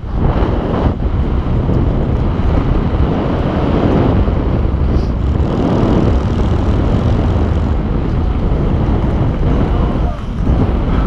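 Steady, loud wind rush buffeting the microphone of a camera in fast flight, easing briefly near the end.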